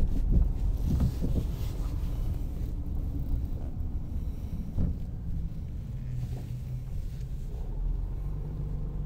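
A car driving along a street, heard from inside the cabin: a steady low rumble of engine and road noise, with one brief thump about halfway through.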